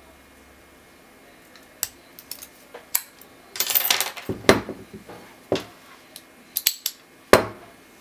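Brass padlock and steel lock picks clicking and clinking in the hands, with a scraping rattle about halfway through. Several sharp knocks follow, the loudest near the end, as the padlock is set down on a wooden table.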